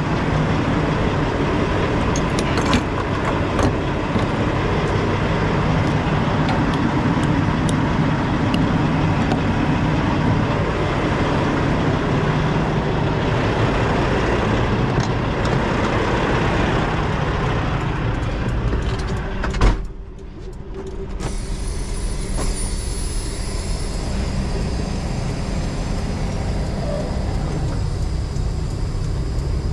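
Freightliner FLD semi truck's diesel engine running steadily. A sharp knock comes about 20 seconds in, and after it the sound is quieter and duller.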